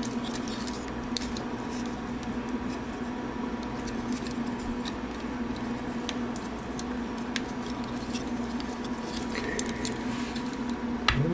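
Scattered small clicks and taps of a collectible toy figure's parts being handled and moved into place, over a steady low electrical hum.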